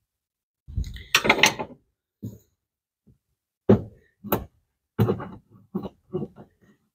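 A series of short knocks and clunks from hands working a cable and rubber grommet into a hole in the car's sheet-metal firewall. There is a louder clatter about a second in, then single taps every half second or so.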